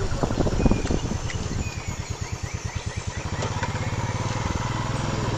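A vehicle engine idling with a rapid, even pulse, becoming steadier and fuller about three seconds in.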